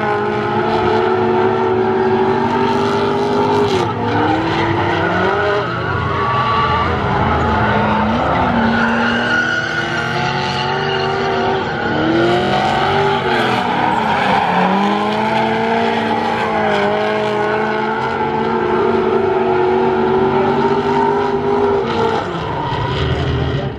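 Several drift cars in a tandem drift, engines held at high revs with tyres squealing and skidding; the engine notes dip and climb back several times.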